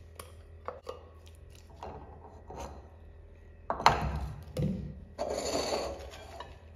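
Wooden spoon scraping and tapping ground corn out of a glass blender jar, with small clicks. About four seconds in, the glass jar is set down on the tile counter with a sharp knock, the loudest sound. Near the end a ladle scoops fresh corn kernels from a glass bowl with a brief rattling rustle.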